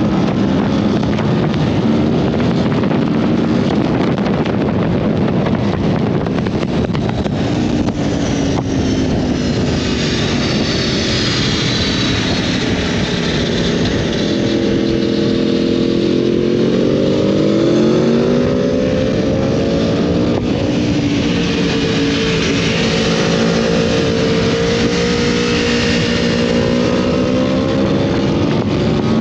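Four-cylinder sport motorcycle engine under way, its revs climbing and falling several times as it accelerates and backs off, with wind rushing past.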